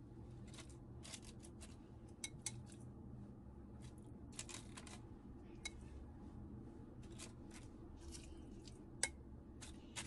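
Scattered light clicks and ticks of a utensil and food against an enamelled cast iron pot as pieces of marinated fish are laid on cabbage, the sharpest click about nine seconds in, over a steady low hum.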